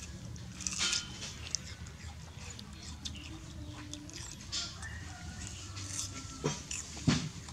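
A baby macaque eating watermelon: scattered short wet smacks and clicks as it bites and chews the slice, the loudest near the end, over a low steady background.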